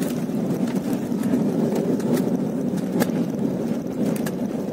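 Steady low cabin rumble of an Embraer E195 airliner rolling along the runway just after landing, with its spoilers deployed. A few faint clicks are scattered through it.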